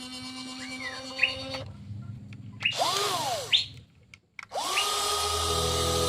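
Whine of the small electric motors of a WLtoys 16800 RC toy excavator. A short burst rises and falls in pitch, there is a brief pause, and then the whine climbs and holds steady.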